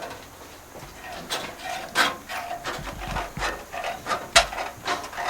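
Copper sheet flashing being cut with hand snips, trimming a curved corner: a run of sharp clipping strokes roughly every half second, starting about a second in.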